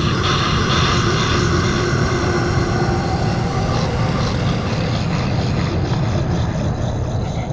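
Loud, dense harsh-noise drone: a steady distorted wash covering the whole range, with a few held tones fading out early and the highest part dropping away about five seconds in.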